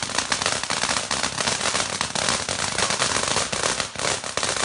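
Crackling firework giving off a dense, rapid stream of small pops and crackles, unbroken throughout.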